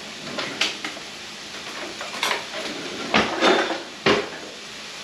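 A spoon knocking and scraping against a small metal pot as rice is stirred: a handful of separate clinks, the loudest ones in the second half.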